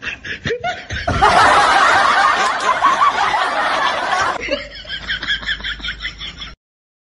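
People laughing: loud laughter from about a second in, turning into quick rhythmic laughing pulses, then cutting off suddenly near the end.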